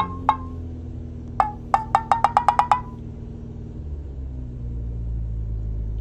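A quick run of short pitched beeps, about five a second, each sliding slightly up in pitch, with a single beep just after the start and the run stopping about halfway through. A steady low hum runs underneath and continues alone afterwards.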